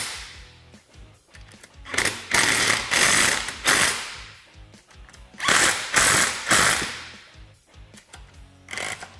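Cordless impact wrench hammering in two bursts of roughly two seconds each, about two seconds in and again about five and a half seconds in, as it runs down the bolts that fasten the winch to its mounting plate.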